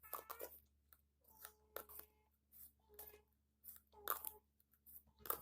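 Plastic cups clacking and knocking together as they are handled and stacked: a string of light taps, one every half second or so, some ringing briefly.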